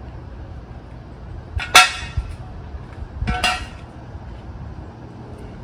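Two sharp metallic clanks about a second and a half apart, each with a brief ring, from the steel floor jack being worked under the truck, with duller knocks around them.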